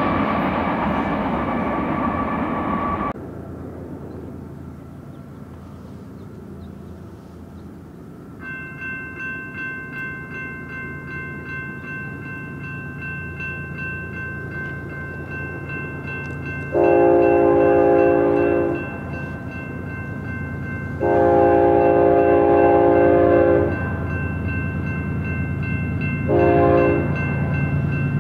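Freight train noise that cuts off about three seconds in. Then a grade-crossing warning bell starts a steady repeating ring, and an approaching diesel locomotive's air horn sounds two long blasts and a short one, the start of the standard crossing signal, over the growing rumble of the train.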